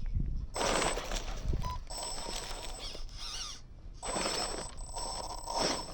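Small electric drive motor of a 3D-printed RC rock-crawler truck whining in three bursts of throttle, about half a second in, around two seconds, and from about four seconds on, over a low rumble.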